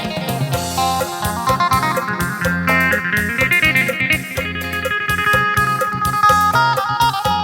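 Isan lam sing music: an amplified phin plays a fast plucked melody over a bass line and a steady beat.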